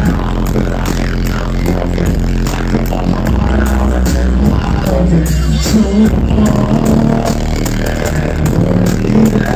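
Live hip-hop set: a rapper's vocals through the club PA over a loud, bass-heavy beat.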